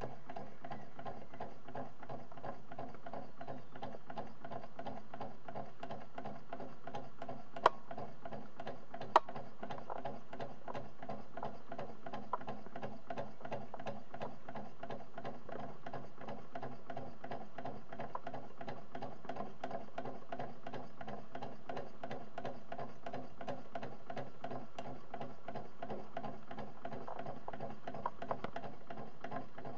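A homemade model Stirling engine built from scrap parts, running steadily: its crank, connecting rods and pulley flywheel clatter in a fast, even mechanical rhythm. Two sharp clicks come about 7.5 and 9 seconds in.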